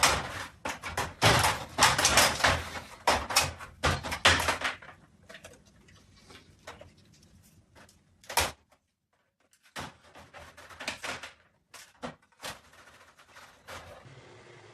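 A rapid run of knocks and clatters for about five seconds, like a door or cupboard being rattled and banged, then scattered single knocks with short quiet gaps between them.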